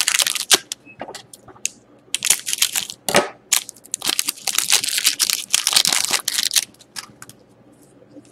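Foil wrapper of a trading-card pack crinkling and tearing as it is ripped open, in crackly bursts that are densest in the middle. Near the end, only faint handling of the cards.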